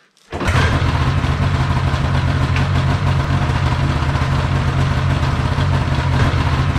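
Ski-Doo 670 snowmobile's two-stroke engine idling steadily, coming in abruptly a moment in.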